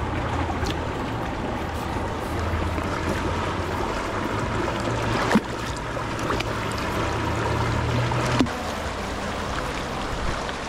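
The River Dee in spate, fast brown water rushing over its bed in a steady, even noise, with a low rumble under it. Two sharp clicks stand out, about five and eight seconds in.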